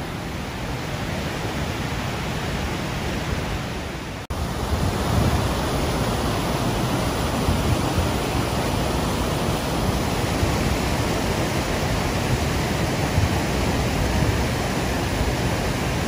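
Rhine Falls: the steady rush of water pouring over the rocks of the falls, loud and even. It drops out for an instant about four seconds in, then carries on a little louder.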